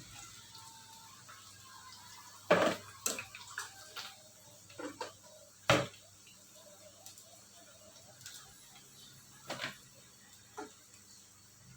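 Kitchen utensils and dishes being handled: a series of separate clinks and knocks, the loudest about two and a half seconds in and just before six seconds in, with a few quieter ones later.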